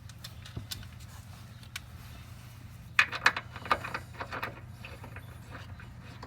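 Metal parts and tools clinking and knocking as they are handled: a few light clicks, then a quick, louder cluster of clanks about halfway through. A steady low hum runs underneath.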